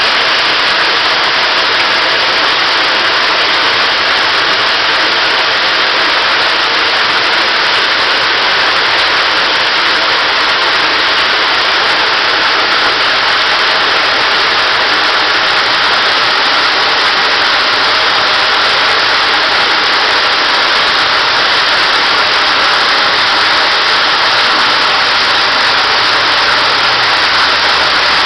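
Artificial rock grotto waterfall splashing into its pool: a loud, steady rush of falling water.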